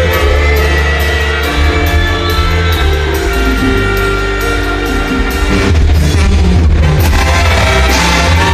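Live banda music played loud: tuba, brass, keyboard and drums over a steady beat.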